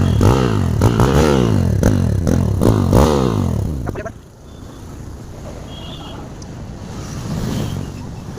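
Motorcycle engine heard through its silencer, revved in a series of quick blips that each fall back in pitch. About four seconds in it drops to a quieter, steady idle.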